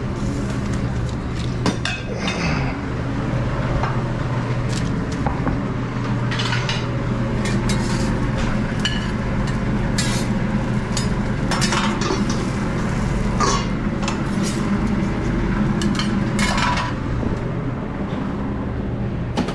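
Metal cookware and utensils clinking, knocking and scraping during short-order cooking, over a steady low hum of kitchen equipment.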